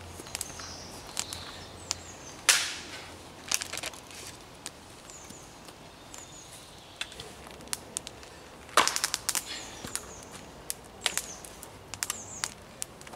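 An axe chopping and splitting pine on a log chopping block. The sharp chops are loudest about two and a half seconds in and again near nine seconds in, with a quick run of blows there and lighter knocks of wood between.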